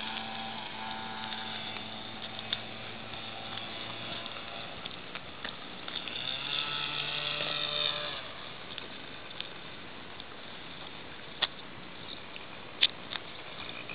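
Radio-controlled model airplane's motor humming in flight, getting louder with its pitch sliding up and down as the plane passes over about six to eight seconds in. Two sharp clicks near the end.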